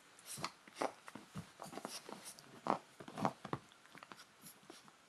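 Poodle puppy playing with a person's hand, making short, irregular sounds.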